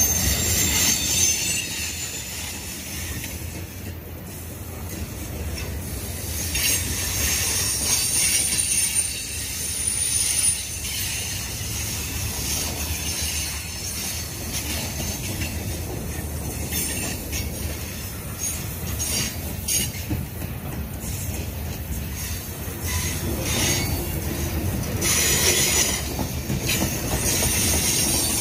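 Freight cars of a passing train rolling by: a steady low rumble and clatter of steel wheels on rail, with high-pitched wheel squeal coming and going as the wheels work through the curve. The squeal is strongest about a second in, again around eight to ten seconds, and near the end.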